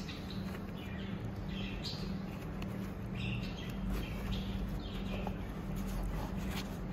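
Rubber tire and inner tube of a scooter's rear wheel squeaking and rubbing as gloved hands work them around the rim, with short high squeaks scattered through, over a steady low hum.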